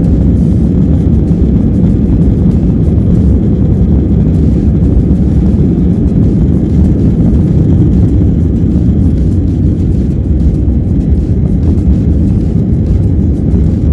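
Steady low roar of a jet airliner heard from inside the cabin in flight, even and unbroken throughout.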